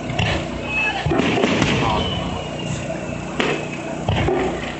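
Fireworks shells bursting: several sharp booms a second or two apart over a steady background murmur.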